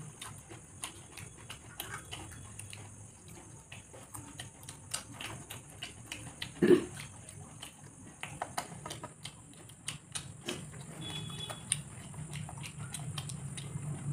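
Two people eating mughlai paratha and ghugni by hand: chewing and lip-smacking with many small clicks as fingers pick food off steel plates, and one louder short sound about halfway through.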